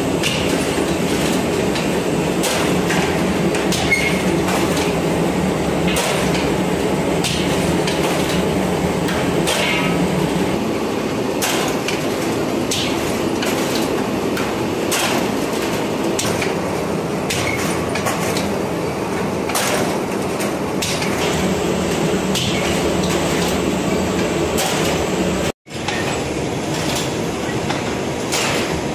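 Automatic lavash bread machine running: the dough-sheeting rollers and chain-and-sprocket drive make a steady mechanical rumble, with frequent irregular metallic clicks and knocks. The sound cuts out for an instant about three-quarters of the way through.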